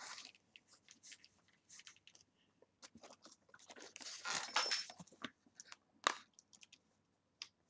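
Close handling noise of headphones and their cable: scattered rustles and small clicks as the headphones are settled on and the cable's plug is pushed into the Chord Mojo's headphone socket, with one sharp click about six seconds in.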